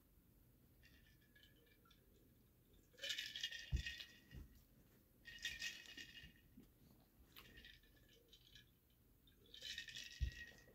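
Ice cubes rattling in a glass mason jar as it is swirled, in several short bursts, with a couple of dull thumps.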